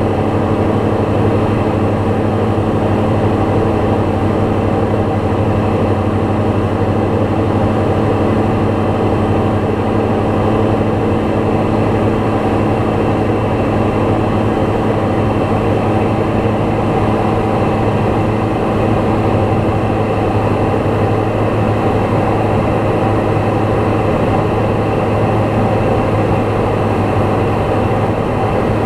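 Small propeller plane's piston engine and propeller running at a steady, unchanging pitch in level flight.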